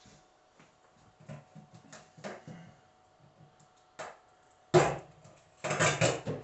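Light knocks and clicks, then a sharp knock about three-quarters of the way through and a louder run of clattering near the end: a new compact refrigerator and its packaging being handled.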